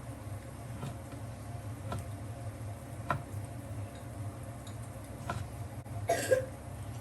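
Cooking sounds: a few light clicks of utensils on camp cookware over a steady low hum, with a brief louder noise about six seconds in.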